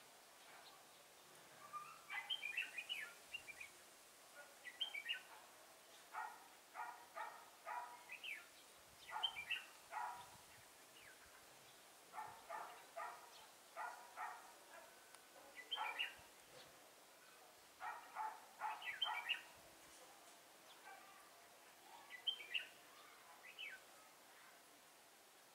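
Red-whiskered bulbuls singing in short clusters of sharp, rapid notes, a phrase every second or two.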